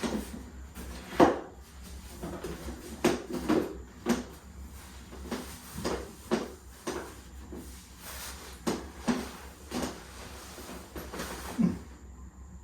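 A gaming chair's pull-out footrest being worked by hand: irregular clunks and clicks from its sliding mechanism, the loudest a little over a second in.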